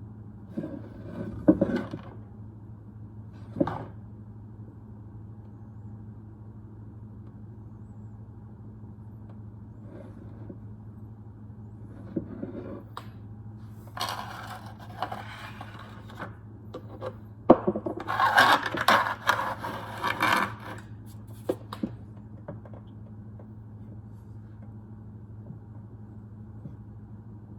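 Wooden pieces being handled in a workshop: scattered knocks and short bouts of scraping and rubbing, the longest a couple of seconds of scraping in the second half, over a steady low hum.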